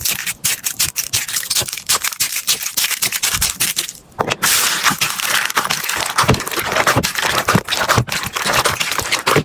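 Slime being squeezed and stretched by hand, a dense run of sticky crackles and pops, with a brief break about four seconds in.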